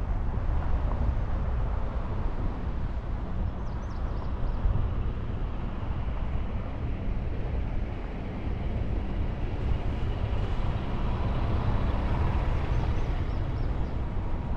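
Car rolling slowly over a gravel lot: a steady low rumble of tyres and engine.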